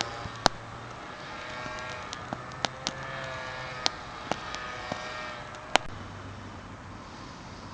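Wood bonfire crackling, with about ten sharp pops scattered through and a faint wavering whine beneath that fades out near the end.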